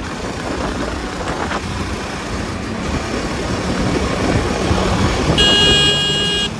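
KTM Duke 250's single-cylinder engine running at highway speed under the rider, mixed with heavy wind rush on the microphone. About five seconds in, a steady high-pitched tone joins and becomes the loudest sound.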